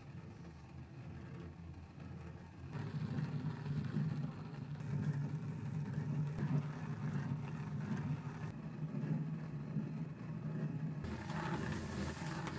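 Hand-turned stone quern grinding rice: a steady low rumble of stone turning on stone, with a grittier grating sound joining in near the end.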